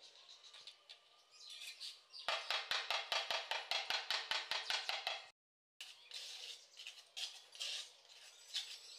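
A ceramic wall tile being tapped into its cement mortar bed with a trowel, in a quick even run of hard taps, about seven a second for some three seconds. Quieter scraping and a few clicks of the tool and mortar come before and after.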